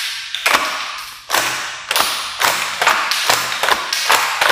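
XM1014 gel blaster shotgun's action being cycled by hand, ejecting its shells: a series of sharp clacks, about two a second, each echoing briefly.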